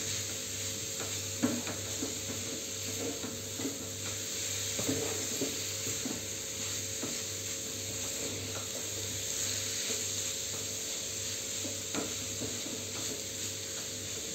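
Spatula stirring grated carrot halwa in a metal kadhai, with irregular scrapes against the pan over a steady ghee sizzle.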